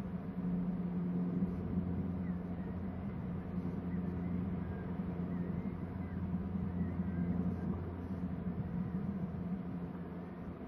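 A steady low hum, with faint, high, thin bird calls scattered through it as short chirps.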